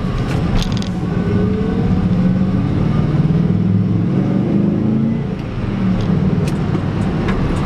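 Ford 5.0-litre V8 of a 1994 F150 pulling hard under acceleration, heard from inside the cab, its pitch climbing with a brief dip about five seconds in.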